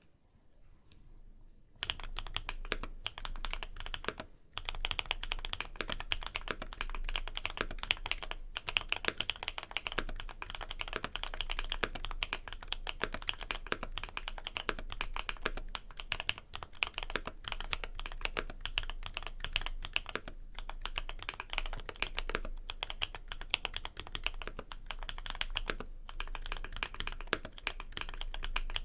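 Typing on a MONSGEEK M1 aluminium mechanical keyboard fitted with Kikimeow Vitality tactile switches and PBT cherry-profile keycaps. Fast, continuous keystrokes start about two seconds in and run on, with one short pause a couple of seconds later.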